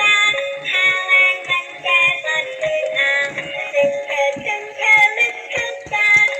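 A high, synthetic-sounding melody with a steady beat of soft knocks underneath.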